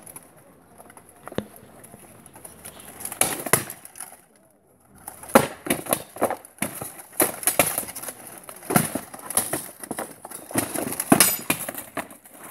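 Swords striking plate armour and a wooden shield in an armoured sword bout: a couple of blows, a short lull, then a fast, dense run of metal clanks and knocks from about five seconds in.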